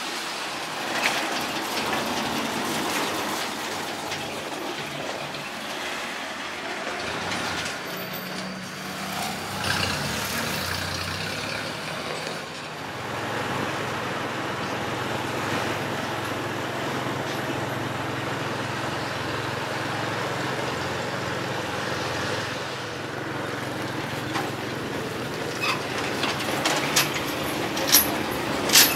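ZiL-164 dump truck's six-cylinder petrol engine running as the truck drives by, its low hum strengthening about halfway through. There are a few sharp knocks near the end.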